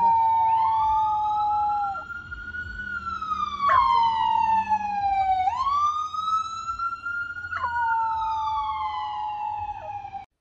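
A wailing emergency-vehicle siren sweeps slowly up and down in pitch. A young Australian shepherd puppy howls along with it in long drawn-out notes, near the start and again toward the end.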